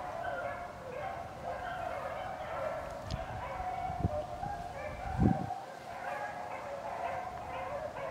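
A pack of beagles baying as they run a rabbit's trail, several voices overlapping without a break. Three low thumps come near the middle, the last and loudest about five seconds in.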